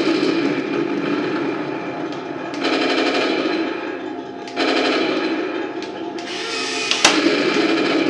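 Electronic machine-gun sound effects from a Heng Long 1:16 Challenger 2 RC tank's sound unit, played through its small speaker in several long rattling bursts, with a single sharp bang about seven seconds in.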